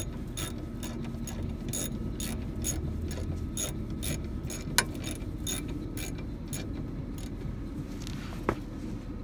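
Hand socket ratchet clicking steadily, about three clicks a second, as the brake caliper bolts are run in and snugged down; the clicking stops about six and a half seconds in, with a single sharper knock near the end.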